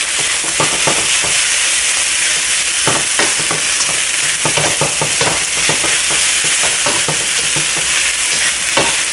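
Pork fried rice with Chinese broccoli sizzling steadily in a hot pan on high heat, with the irregular scrape and clatter of a utensil stirring it against the pan.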